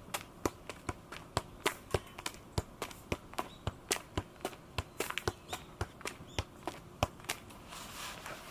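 TACHIKARA freestyle football being juggled: a steady run of sharp taps as the ball strikes the foot, about three a second.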